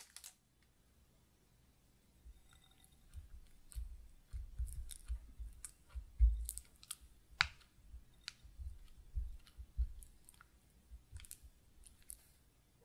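Silicone spatula pressing and working soft cream cheese in a glass bowl: scattered light clicks against the glass and soft low thumps as the bowl shifts, starting about two seconds in.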